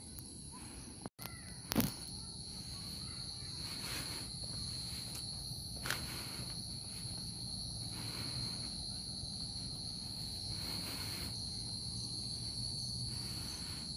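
Steady high-pitched chirring of insects in the evening, with footsteps on a gravel and pebble path and a sharp click near the start.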